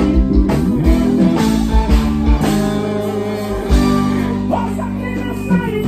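Live band music with electric guitar to the fore over keyboards, bass and drums. The drums hit steadily for about the first two seconds, then the band holds long sustained chords.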